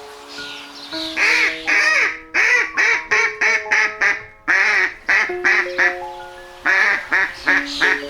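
Duck quacking in quick runs of short calls, about three a second, with brief pauses between the runs, over background music of soft sustained notes.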